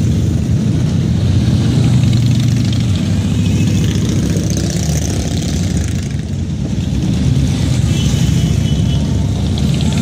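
A procession of large cruiser and touring motorcycles riding past at parade speed, many engines running together in a loud, steady low drone that dips slightly about six seconds in.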